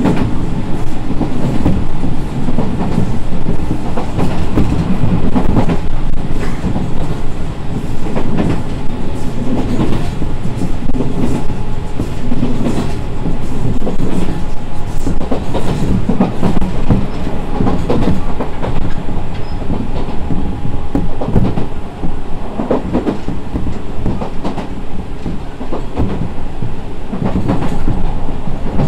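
Enshu Railway 1000 series electric train heard from inside the car while running at speed. The wheels rumble steadily on the rails, the rail joints give a clickety-clack, and a faint steady whine comes in through the middle stretch.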